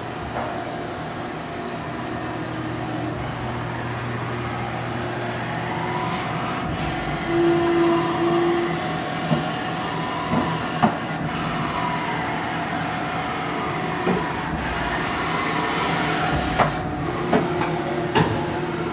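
Haas VF-E CNC vertical machining center powered up and running: a steady mechanical hum, with a whine that rises and falls twice. Several sharp clicks come near the end.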